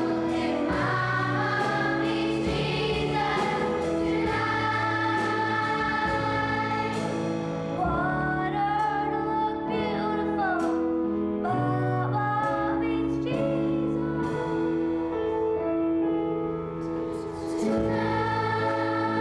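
A choir singing, holding long sustained chords, with a brief softening a couple of seconds before the end.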